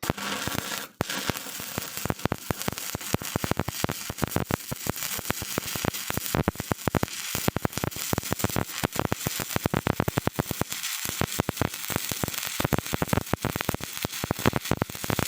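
Stick-welding arc crackling steadily as the electrode runs a bead. It starts suddenly with the arc struck, dips briefly about a second in, then carries on as a dense, even crackle.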